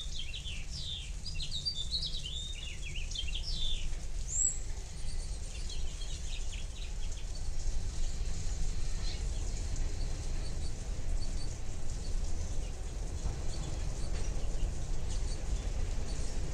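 A bird chirping busily for the first few seconds, over the steady low rumble of a slow freight train of flatcars and covered hoppers rolling past. The rumble grows a little louder toward the end.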